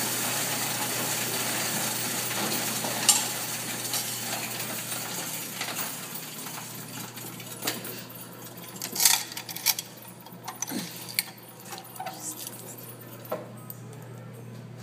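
Coin-counting kiosk running as coins feed through it: a dense, steady rattle that fades about halfway through. After that come scattered separate coin clinks and clicks, the loudest a few seconds from the end.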